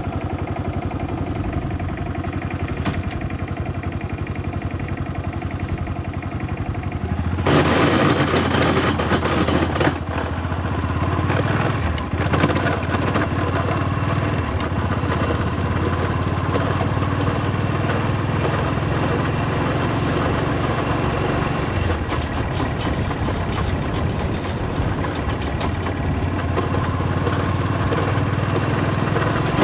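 Yamaha SRX400's single-cylinder engine running at idle. About seven seconds in it turns suddenly louder and harsher, with a rattling clatter over the running, and stays that way. This is the abnormal noise the owner takes to be probably a blown transmission and a slipping clutch.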